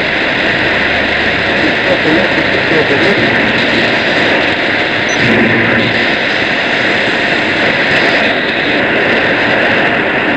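Shortwave radio reception swamped by a steady, loud hiss of noise, with a faint voice only barely coming through underneath.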